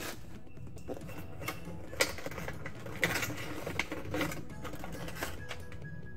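Clear plastic packaging tray and cardboard box being handled as an action camera is unboxed: a string of irregular clicks and crinkles, the sharpest about two seconds in.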